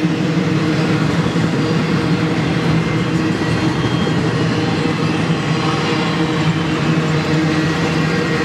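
Intermodal freight cars loaded with trailers and containers rolling past at speed: a steady rumble and clatter of steel wheels on the rail, with a steady hum under it.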